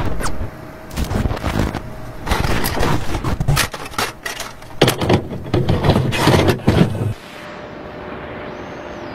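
Digital glitch sound effects for an animated logo: a run of harsh static crackles and heavy thumps that stops abruptly about seven seconds in, leaving a steady low hiss.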